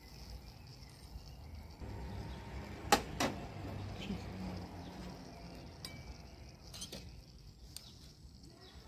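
Metal fork and skewers clinking against a china plate as grilled beef liver and cherry tomatoes are pushed off the skewers onto it. There are a few scattered clinks, the sharpest about three seconds in.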